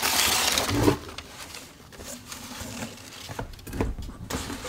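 Packaging rustling and crinkling as a parcel is unwrapped by hand, loudest in the first second, then lighter handling rustles with a few soft thumps.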